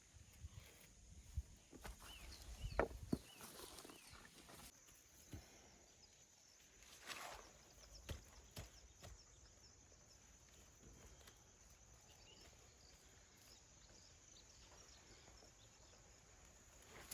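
Near silence: faint outdoor ambience, with a few soft knocks and clicks about two to three seconds in and brief rustles about seven and eight seconds in.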